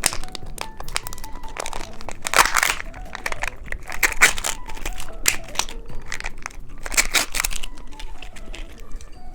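Crinkling plastic candy wrapper being handled and torn open in a run of irregular crackles, over soft background music.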